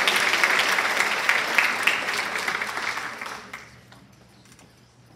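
A large audience applauding, the clapping dying away about three and a half seconds in and leaving only a few faint clicks.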